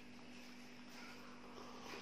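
Faint sips of milky tea from a drinking glass, over a steady low hum.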